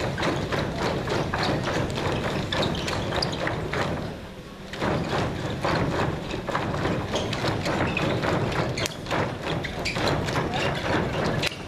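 Many dancers' sneakered feet landing and stamping on the stage floor in a quick, rhythmic patter of thuds, with a short let-up about four seconds in.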